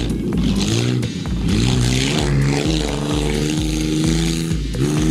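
Tough truck's engine revving hard under load, its pitch climbing and holding high, then dropping sharply near the end before climbing again.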